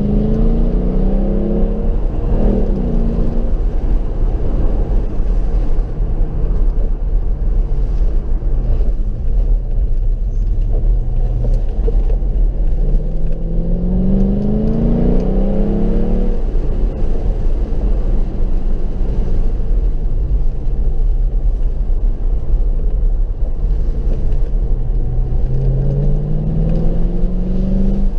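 Mercedes SLK 55 AMG's V8 engine pulling under acceleration. Its pitch rises three times: at the start, about halfway through and near the end, over a steady low rumble.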